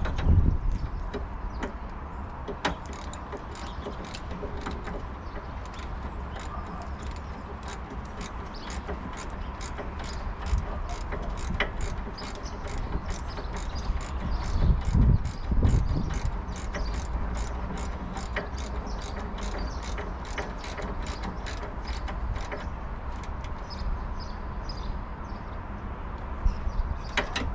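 Ratchet wrench clicking steadily, about three clicks a second, as it spins a nut down onto a suspension drop link stud. A few dull low knocks come about halfway through.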